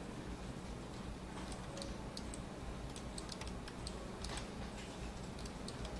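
Light, irregular clicks of a computer keyboard and mouse being worked, over a steady low hum.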